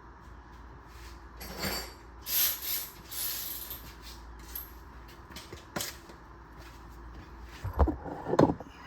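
Hand work on a car's brake assembly: metal parts and tools scraping, clicking and knocking irregularly, with a longer scrape a couple of seconds in and a few louder knocks near the end.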